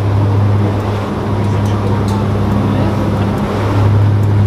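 Turboprop airliner's engines and propellers at takeoff power heard from inside the cabin: a loud, steady, low drone with a hum over rushing noise.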